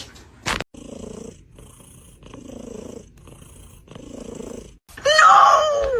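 A domestic cat purring, the purr swelling and fading with each breath. Near the end a loud, drawn-out call with a falling pitch cuts in.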